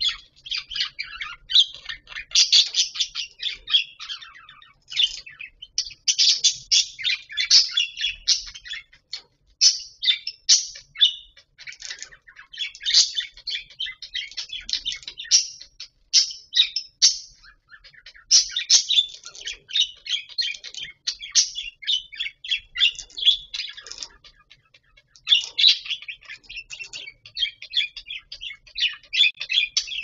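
Budgerigars chirping and warbling in rapid, high-pitched chatter, with a few brief pauses.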